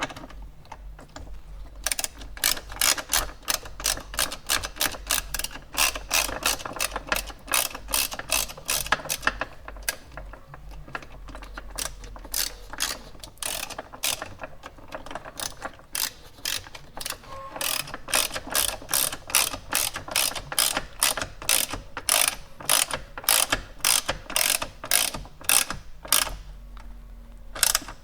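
A ratcheting screwdriver clicks steadily, about three to four clicks a second, in long runs with short pauses, as the bolts of a seatbelt height adjuster are driven back in.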